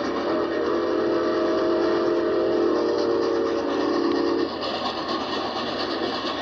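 Chesapeake and Ohio J3a 4-8-4 No. 614's steam whistle blowing one long, steady chord that cuts off about four and a half seconds in, followed by the steady running noise of the moving train.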